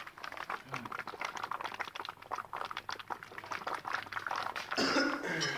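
HHO gas from a home-made electrolysis generator bubbling through water in a plastic bottle bubbler: a dense, irregular fizzing and bubbling, louder for a moment near the end.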